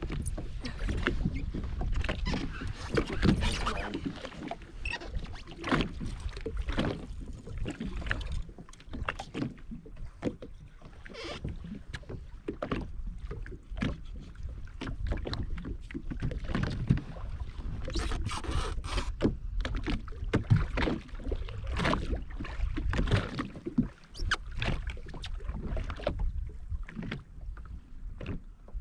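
A jet ski out on the water, with a low, steady rumble and irregular sudden splashes and thuds of water against the hull. Wind buffets the microphone.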